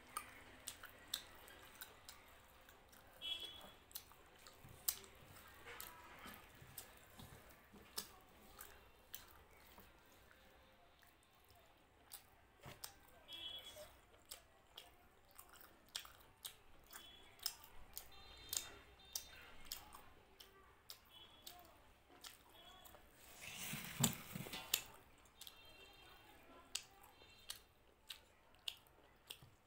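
Close-miked chewing of a mouthful of mutton curry and rice, with frequent wet mouth clicks and lip smacks. A louder noisy burst comes about 24 seconds in.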